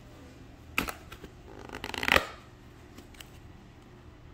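Food packaging being opened by hand: a sharp click about a second in, then rustling that ends in a loud snap about two seconds in.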